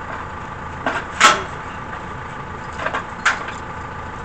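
Backhoe loader's diesel engine idling steadily, with about four short, sharp knocks, the loudest a little over a second in.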